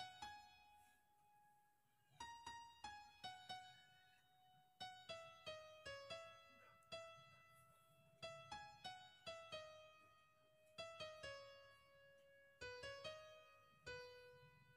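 Faint background piano music: a slow line of single notes, each struck and left to fade, with a pause of about two seconds near the start.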